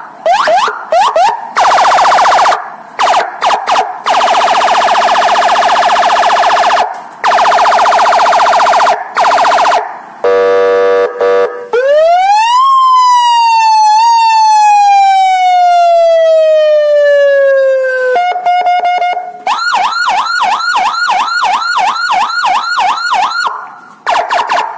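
Electronic vehicle siren module sounding through a horn speaker and cycling through its tones. It opens with fast yelping sweeps and a long rapid warble. About ten seconds in comes a short pulsing tone, then one long wail that rises quickly and falls slowly for about six seconds. Near the end it changes to fast repeating chirps, about five a second.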